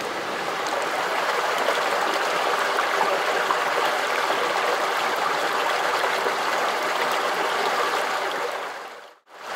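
A small stream cascading over mossy rocks: a steady rush of falling water that fades out near the end.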